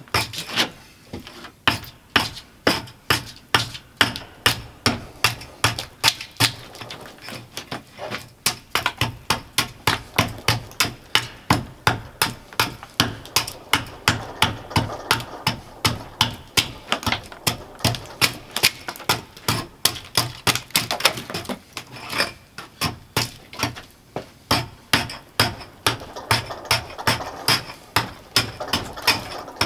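Bark spud chopping into the bark of a gray birch log, striking about twice a second with a few short pauses as it chips the bark away.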